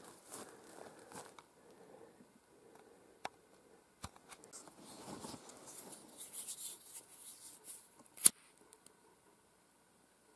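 Rustling and handling noise of clothing and dry vegetation, with a couple of small clicks, then one sharp click near the end as a disposable flint lighter is struck and lights.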